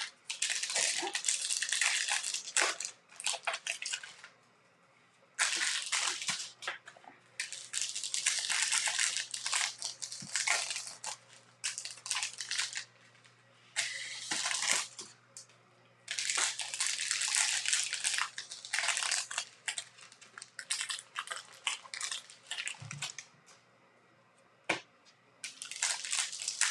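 Bowman baseball card packs being handled close to the microphone: foil wrappers crinkling and cards sliding against one another as they are flipped through. The rustling comes in bursts of one to three seconds with short quiet gaps.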